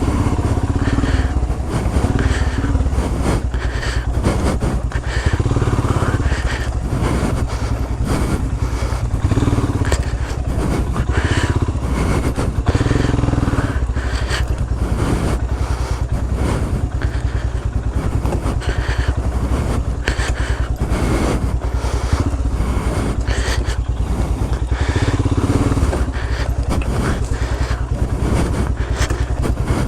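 Royal Enfield Himalayan's single-cylinder engine running as the bike rides a rough off-road trail, the throttle swelling and easing every second or two, with frequent short knocks from the rough ground.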